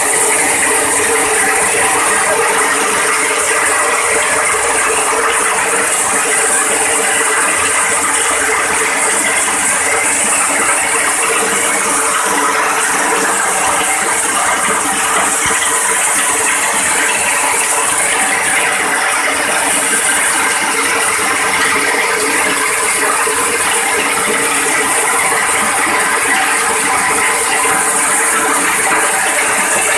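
Steel hammer mill, belt-driven by an electric motor, running at a steady speed while grinding grain into flour. It makes a loud, even mechanical whirr with several steady tones and a high hiss, unchanged throughout.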